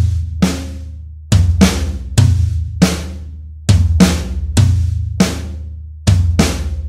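Electronic drum kit played in a steady groove: kick drum, snare and cymbal hits, about four strokes in a pattern that repeats roughly every two and a half seconds, with the cymbals ringing on between strokes.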